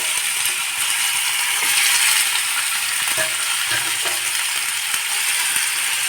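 Marinated chicken pieces sizzling steadily as they fry in hot oil in a pan, with a few faint knocks from stirring.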